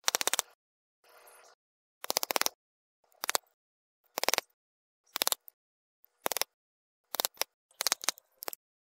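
Screwdriver scraping against the inside of an electric forge blower's cast-metal motor housing, around the stator, in short scraping strokes about once a second.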